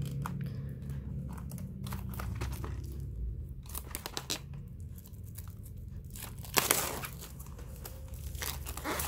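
Plastic shrink-wrap on a boxed kit crinkling and being torn off by hand, a run of irregular crackles with one louder rip about six and a half seconds in.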